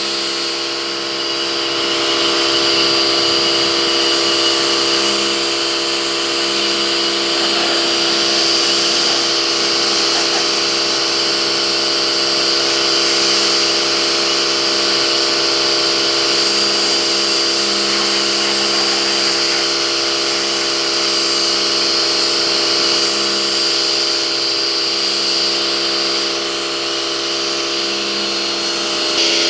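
Pressure washer running steadily: an even motor-and-pump whine with the hiss of the high-pressure water spray over it.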